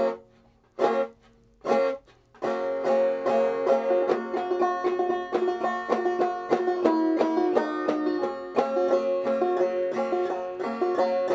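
Banjo in open G tuning, tuned down a half step, played clawhammer style. Open strings are strummed a few times about a second apart, each ringing out, then a steady picked melody line begins about two and a half seconds in.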